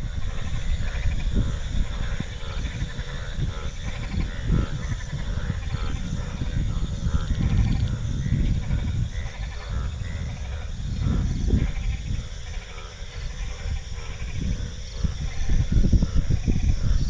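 A chorus of many frogs calling at once, with bleat-like croaks overlapping without a break.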